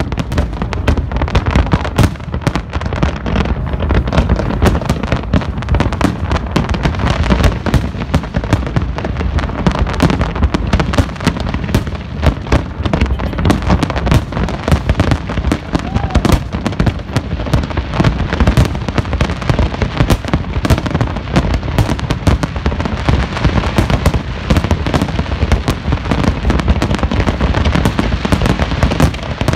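Fireworks display in a dense barrage: aerial shells bursting many times a second without a break, the bangs overlapping into a continuous rumble.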